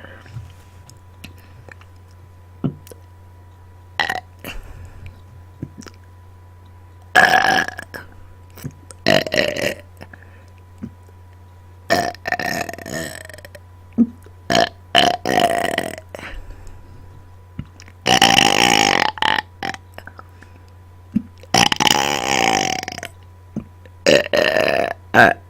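A series of deliberate burps, about eight belches with short gaps between them. Two longer belches in the second half each last over a second.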